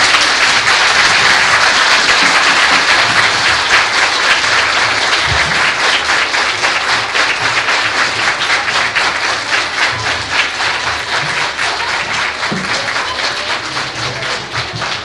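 Audience applause: a large crowd clapping hands, loud and dense at first and slowly dying down toward the end.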